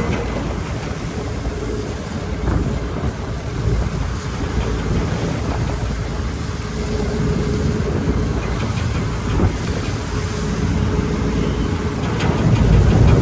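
A car and bus ferry under way in rough seas: a steady drone with a faint constant hum, with wind rumbling on the microphone that swells up near the end.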